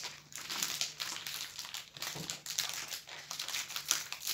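A plastic biscuit wrapper crinkling continuously and irregularly as it is handled and opened.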